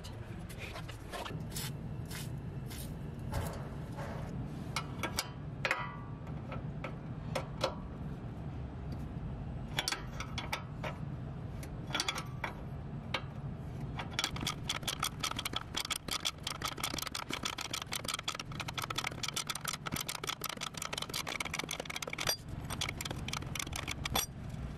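Metal clicks and clinks of a wrench on a 14 mm suspension nut, turning into a fast, even run of ratcheting clicks past the middle as the nut is worked, over a steady low hum.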